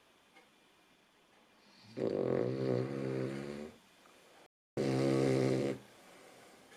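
Cavalier King Charles Spaniel snoring: two loud, pitched snores, the first about two seconds in and lasting nearly two seconds, the second shorter, about a second after it.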